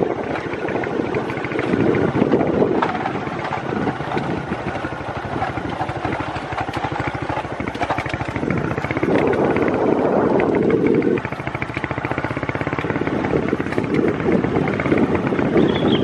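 Motorcycle engine running steadily with wind buffeting the microphone, the wind swelling and easing several times.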